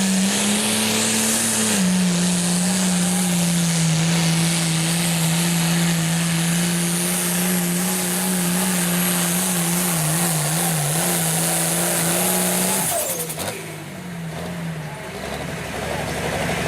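Light Limited Super Stock pulling tractor's turbocharged diesel engine running flat out under load, with a high whine above it; its pitch dips a little about two seconds in and wavers near ten seconds. About thirteen seconds in the engine drops off sharply as the throttle comes off at the end of the pull.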